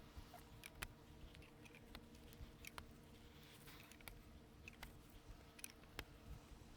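Near silence: faint room tone with a low steady hum and a few soft, scattered clicks.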